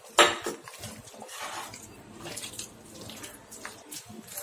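Wet squishing of a hand kneading raw prawns into a thick chilli, cornflour and maida marinade in a bowl. It starts with a sharp wet slap just after the beginning, then goes on as irregular squelches.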